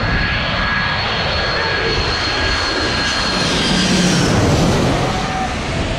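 Jet airliner coming in to land, passing low directly overhead with its landing gear down: a loud, steady engine roar with a high turbine whine, swelling slightly as it goes over about four seconds in.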